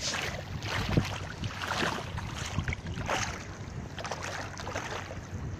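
Feet in slide sandals wading through shallow water over a pebble bed, a splash and swish of water with each step.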